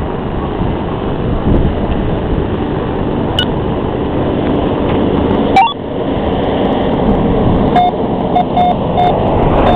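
Steady rumble of motor-vehicle and wind noise with a low hum through the middle and a single knock about halfway. Near the end come four short electronic beeps.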